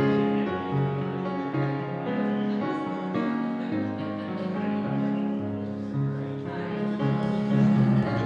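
Piano playing a slow, gentle piece of held chords and notes that change about once a second.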